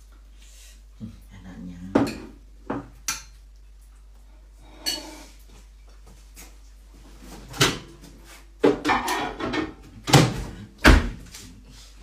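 Kitchen clatter of dishes and utensils being picked up and set down on a counter: a string of irregular knocks and clinks that grows busier and louder in the last few seconds.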